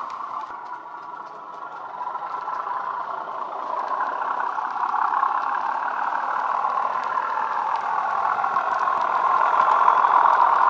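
Bachmann Class 37/4 model locomotive's DCC sound decoder playing a Class 37 diesel engine sound (Legomanbiffo Wensleydale sound file) through a thin bass-enhanced speaker. The sound fades a little as the train moves away, then grows louder as the locomotive comes round and passes close near the end. Faint clicks run over it.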